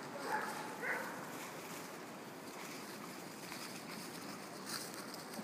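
Pigs jostling nose to nose, with two short squealing calls about half a second apart near the start, then the rustle of trotters through dry fallen leaves.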